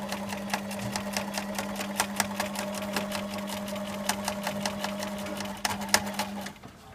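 Electric sewing machine stitching a curved seam in cotton fabric: a steady motor hum with the needle clicking. It stops about six and a half seconds in.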